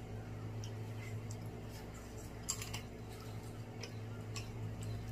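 Snow crab leg shells being cracked and picked apart while eating, heard as scattered small cracks and clicks over a steady low hum.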